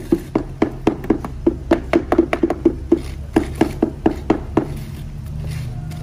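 Hammer knocking rapidly on a wooden concrete mold, about four blows a second, each with a short hollow wooden ring; the knocking pauses briefly near the end.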